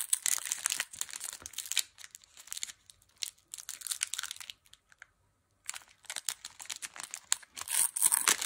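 Foil wrapper of a Pokémon card booster pack crinkling and tearing as it is handled and opened, in quick crackly bursts, with a brief pause a little past halfway and the loudest crinkle near the end.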